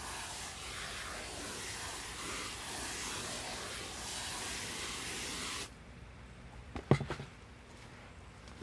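Water hissing steadily from a hose watering wand as it sprays into a tub of dry peat-based seed-starting mix, wetting it for soil blocks; the spray cuts off suddenly about six seconds in. A short knock follows about a second later.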